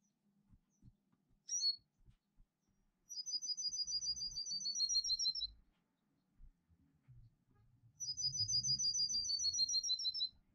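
Songbird song: a short high chirp, then two trills of fast, evenly repeated high notes, each about two and a half seconds long and dropping slightly in pitch at the end.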